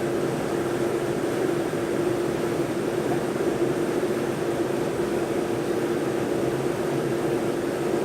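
Industrial washer-disinfector running: a steady mechanical hum with a constant mid-pitched tone over an even rushing noise.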